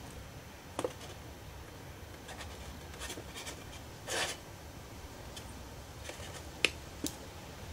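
Small handling noises on a workbench: a few light clicks and taps, and a short scrape about four seconds in.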